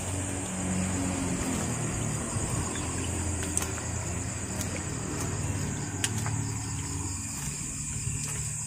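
A low motor rumble with a wavering pitch, over a steady high chirring of night insects, with a few faint clicks.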